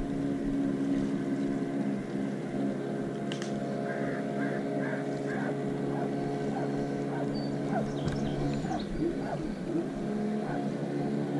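A motorboat engine running at a steady pitch, with a few short chirps over it.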